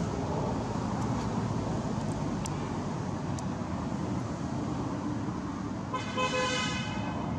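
Steady road-traffic rumble, with one short, flat-pitched vehicle horn toot lasting under a second about six seconds in.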